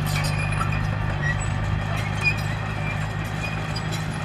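Diesel engine of a heavy earthmoving machine running steadily, a low even hum, with faint short clicks and chirps over it.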